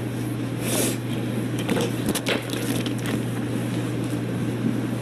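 Steady low hum over an even background noise, with a few brief clicks about one and two seconds in.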